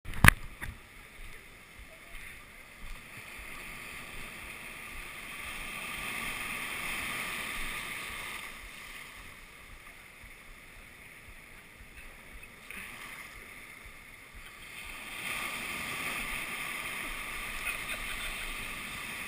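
Surf washing in over sand and draining back, swelling twice, first around the middle and again near the end. A sharp knock at the very start is the loudest moment.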